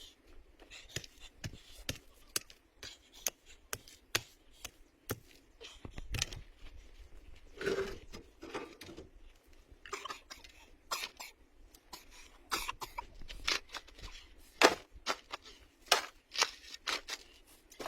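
Irregular sharp clicks and knocks, many of them and unevenly spaced, with one louder knock past the middle, and a couple of brief cough-like vocal sounds.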